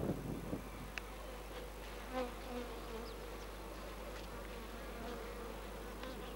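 Honeybees buzzing at an open hive, a steady hum whose pitch wavers slightly, with one sharp click about a second in.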